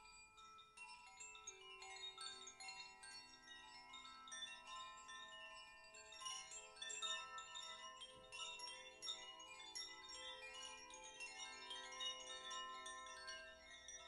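Chimes being played quietly: many bright metal notes struck one after another and left ringing, overlapping into a continuous shimmer.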